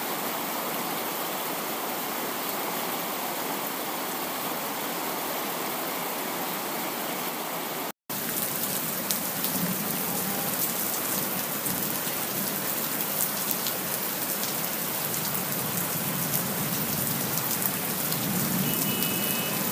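Heavy rain on the windshield of a moving car, heard from inside the cabin: a steady hiss of rain and wet road, with scattered raindrop taps in the later part. The sound cuts out for a moment about eight seconds in.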